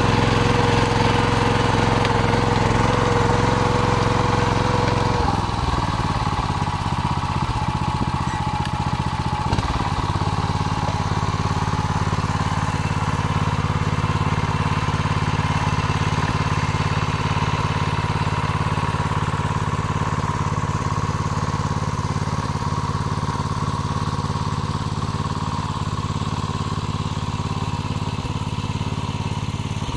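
Small petrol engine of a Ferrari walk-behind tractor running steadily while it drives a BCS rotary tiller through the soil. The engine note changes about five seconds in, then runs on evenly and grows slightly fainter near the end.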